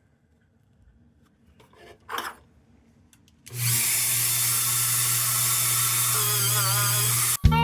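A power tool spins up and runs a wire wheel against the lantern's steel, a steady whirring hiss starting about halfway through and cutting off suddenly near the end. Before it, a few light handling knocks.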